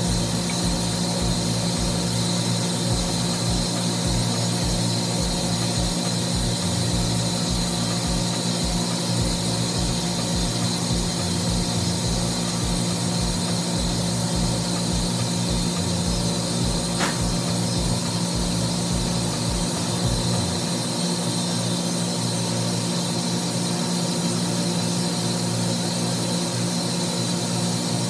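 Steady machinery hum with several steady tones, under a low rhythmic throb about twice a second that stops about two-thirds of the way through.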